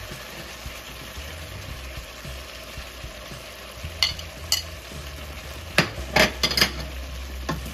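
Chicken and potato curry sizzling in a steel pot as it is stirred with a wooden spoon, with sharp knocks against the pot: two about four seconds in, then a louder cluster around six to seven seconds in.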